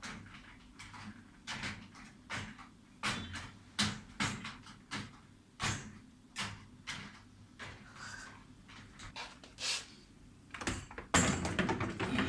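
Dishwasher parts being handled and fitted back into the machine: a string of irregular plastic clicks and knocks, coming closer together and louder about eleven seconds in.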